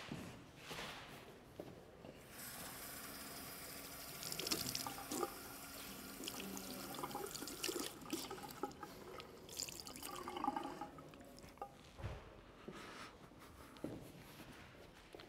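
Water running from a tap into a sink with light splashing, starting about two seconds in and stopping about eleven seconds in. A short low thump follows about a second later.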